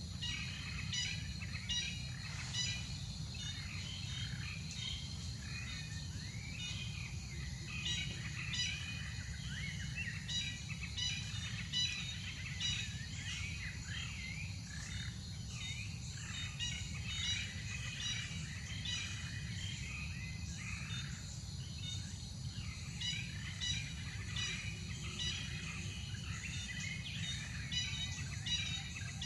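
Forest ambience: birds chirping in many short calls over a steady high insect drone, with a constant low background rumble.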